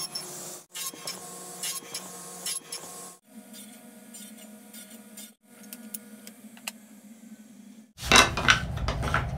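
Wood being handled and worked by hand: a rubbing, scraping noise with small ticks, then a quieter stretch with a steady low hum and a few clicks. Near the end come louder knocks and clatter as the half-lapped wooden frame pieces are handled on the bench.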